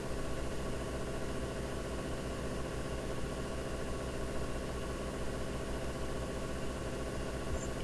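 Steady low hum with no speech, unchanging throughout: background room tone picked up by the microphone.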